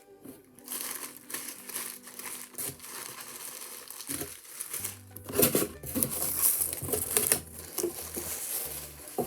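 Packaging wrapping crinkling as small wrapped fidget toys are handled and unwrapped, in irregular bursts that grow busier about five seconds in.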